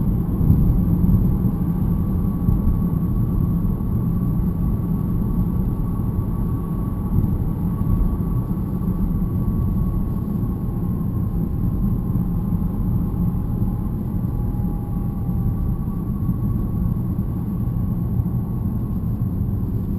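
BMW E90 318 on the move, heard from the cabin: steady road and drivetrain rumble with a thin metallic whine over it that drifts slowly in pitch. The whine is the fault the owner traces to the differential.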